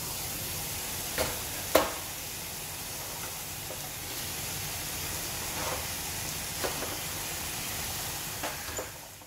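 Carrots and green peas sizzling steadily in coconut oil in a kadai as mashed potato and rice go in, with a few sharp knocks against the pan, the loudest about two seconds in. The sizzle fades away at the end.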